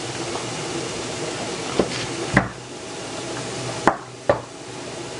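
Four sharp knocks of kitchenware being handled, two around the middle and two close together about four seconds in, over the steady sizzle of meatballs frying in a pan.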